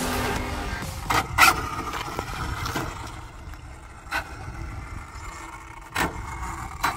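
Electric RC car (Arrma Infraction V2) running on asphalt: its motor and tyre noise fade as it slows. A few sharp ticks are scattered through, the loudest about a second and a half in.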